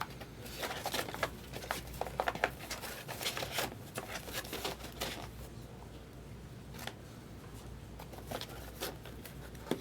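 Trading cards being handled: a quick flurry of crisp rustles, clicks and card-on-card slides for the first few seconds, then only a few scattered ones.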